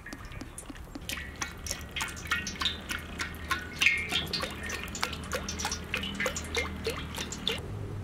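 Cooking oil poured in a stream into a wok, with a dense patter of small splashes and drips that stops shortly before the end.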